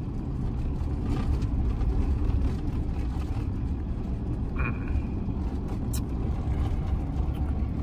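Steady low engine and road rumble inside a moving vehicle's cabin.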